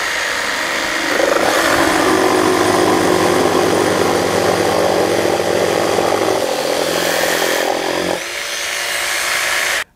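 Two Makita cordless brushless barrel-grip jigsaws, a 40V XGT JV001G and an 18V DJV181, both in soft-start mode, running at once as their reciprocating blades cut through 8x2 timber. One saw finishes its cut and stops about eight seconds in while the other runs on.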